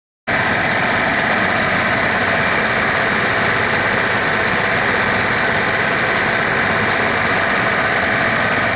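Dodge 5.2L (318) V8 engine idling steadily, cutting in abruptly after a moment of silence.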